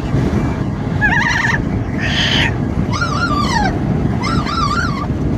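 Amazon parrot calling over steady wind and road noise in a moving car: four loud calls, warbling and wavering in pitch, one a harsh screech and one falling away.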